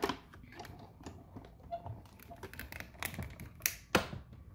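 Hand-cranked die-cutting machine being turned, its cutting plates rolling through with irregular clicking and a few sharper knocks about three to four seconds in. A word die is cutting through cardstock with an adhesive sheet on the back, and the plates are run through and then back again to make sure the detailed die cuts fully.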